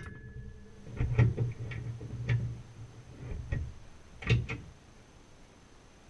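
Dishwasher heard from inside its closed tub: about eight irregular clicks and light knocks over a low hum, which stops about four and a half seconds in.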